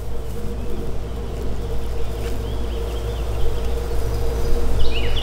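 Small birds chirping: a few faint falling chirps in the middle, then a run of louder, quick falling chirps near the end, over a steady low background rumble and a faint steady hum.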